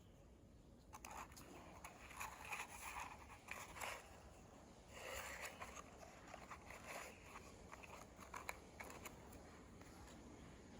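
Faint handling sounds of a Victorinox Scientist pocketknife: scattered light scrapes and a few small clicks.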